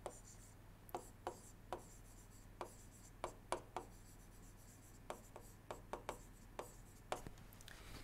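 Stylus writing on a tablet screen: a faint, irregular series of light taps and scratches, with a steady low electrical hum underneath.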